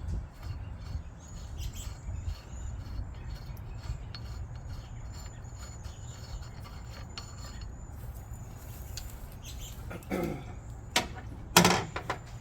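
Light metal clinks and a sharp clank near the end as the propeller nut and tools are handled at a mud motor's prop shaft, over a steady low outdoor background with faint high chirping.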